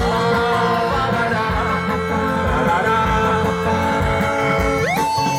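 Live band music in an instrumental stretch between sung lines, with guitar to the fore and a held note sliding up near the end.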